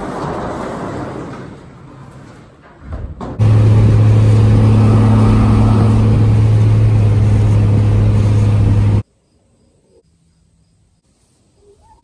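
Pickup truck driving at a steady speed, heard from inside the cab: a loud, steady low engine drone over road noise that starts suddenly about three seconds in and cuts off about nine seconds in. Before it, a noisy sound fades away.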